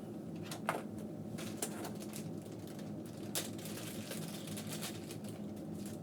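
Irregular clicks and taps from handling a newly assembled desktop PC as it is about to be switched on, over a steady low hum.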